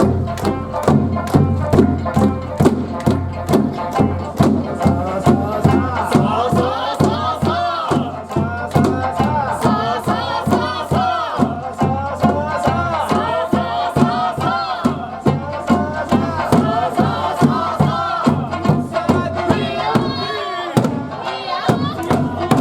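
Eisa performance: drums struck in a steady beat, about two and a half strikes a second, under a sung melody with group shouts.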